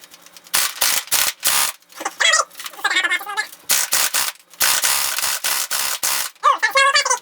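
Crosman Pulsar 72 airsoft electric gun with a plastic gearbox, run on an 11.1 V LiPo battery, firing several short full-auto bursts, then one longer burst of nearly two seconds in the second half. Twice between bursts a short wavering, whining call is heard.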